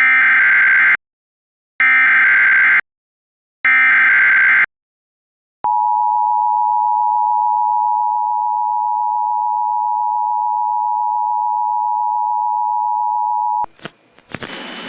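Emergency Alert System tones on FM radio: three one-second bursts of SAME digital header data, then the EAS two-tone attention signal (853 and 960 Hz sounded together), a steady tone held about eight seconds that announces an emergency alert. It cuts off abruptly near the end into radio hiss.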